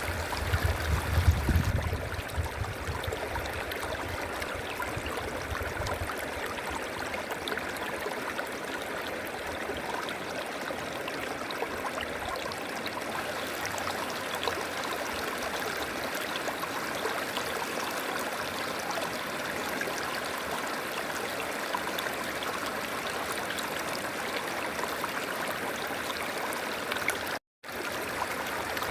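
River water rushing and babbling steadily over rocks, with a low rumble in the first couple of seconds. The sound cuts out for a split second near the end.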